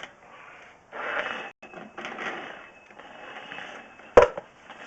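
Scraping and rustling from a sewer cable being worked by hand, with one sharp knock about four seconds in.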